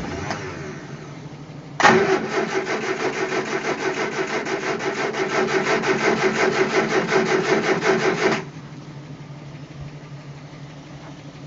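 Triumph Spitfire four-cylinder engine being turned over on its starter for about six and a half seconds, a fast even chug of compression beats that begins sharply and stops abruptly without the engine catching. It is a no-start: the engine cranks but will not run.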